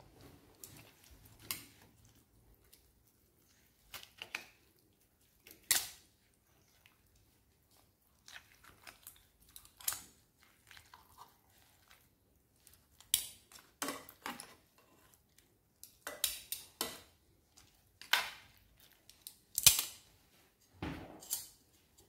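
Metal tongs clicking and scraping against a grill pan while pieces of cooked young chicken are pulled apart: scattered short clicks and knocks with quiet gaps between.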